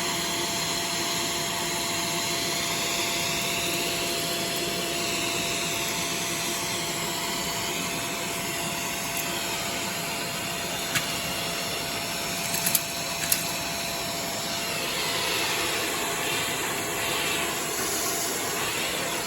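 Vacuum cleaner running steadily, with a constant hum and a sound that shifts slowly as it moves, and a few sharp clicks around the middle, like debris ticking through.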